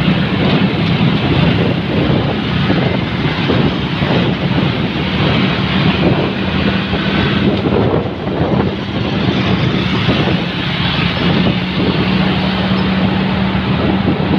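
A vehicle engine running steadily while moving, with a constant low hum, road rumble and wind buffeting the microphone.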